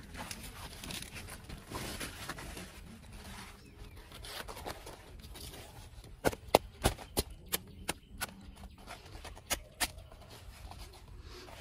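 Fresh banana leaves rustling as they are handled and spread out, with a run of about a dozen sharp, irregular clicks in the middle that are the loudest sounds.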